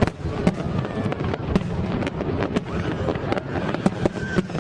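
Fireworks display going off: many sharp bangs and cracks in quick, irregular succession over a continuous rumble of further bursts.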